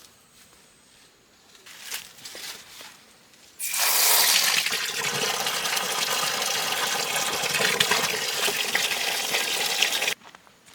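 Water running or gushing steadily, starting suddenly about three and a half seconds in and stopping abruptly near the end, with a few light knocks before it.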